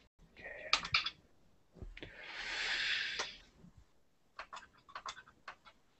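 Scattered faint computer mouse clicks, with a soft breathy rush of noise that swells and fades for about a second and a half in the middle.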